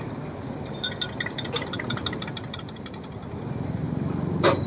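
Quick, light metallic clinking of a spoon stirring tea in a small cup, followed near the end by one louder clink as the tea is poured out. A steady traffic hum runs underneath.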